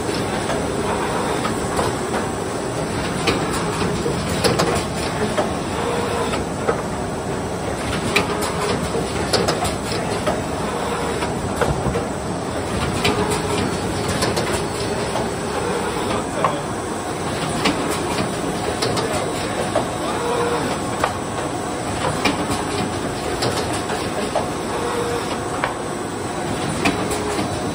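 Automatic rigid box making machine running: a steady mechanical clatter with frequent sharp clicks and knocks from its moving parts.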